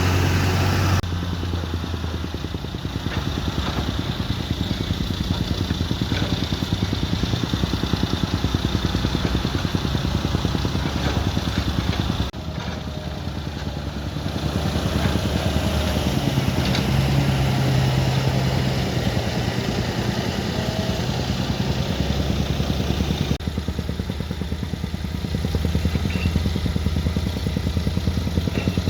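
Engine of heavy earth-moving machinery running steadily with some clatter. The sound changes abruptly about a second in, about twelve seconds in and again near twenty-three seconds.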